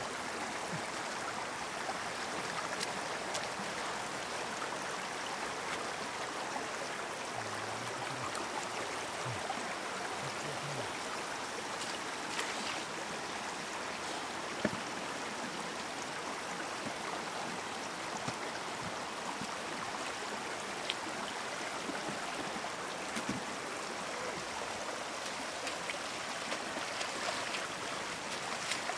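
Shallow floodwater running steadily over a stony road, with a few brief splashes and knocks, the sharpest about halfway through.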